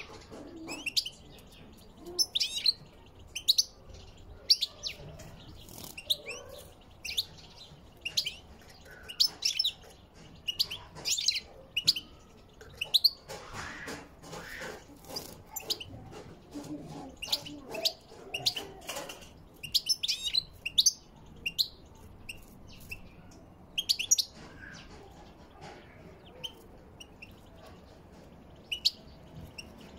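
European goldfinches chirping and twittering in short, high notes that come in scattered bursts, some in quick runs.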